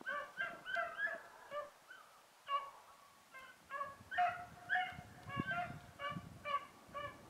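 Beagle hound baying on a cottontail's scent, a faint run of short, pitched yelping barks about three a second, with a brief pause about two seconds in. This is the hound striking, opening up on a fresh rabbit track.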